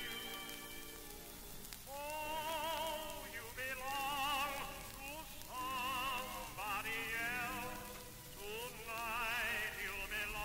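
Music: a slow, old-fashioned tune with a high melody that wavers with heavy vibrato and slides between notes, over sustained lower notes.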